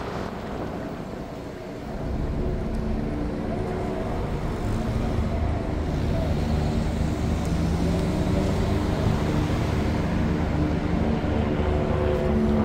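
Motor vehicle engines running in a city street, with several steady tones that come and go. The sound is a little quieter for the first two seconds, then swells.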